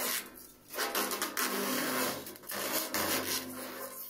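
Protective plastic film being peeled off a polished stainless-steel fireplace panel: an uneven rasping rustle in pulls, with a brief gap about half a second in.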